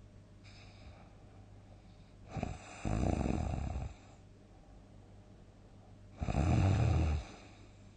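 A sleeping person snoring loudly: two long snores, the first starting about two and a half seconds in and the second about six seconds in, with faint breathing between them.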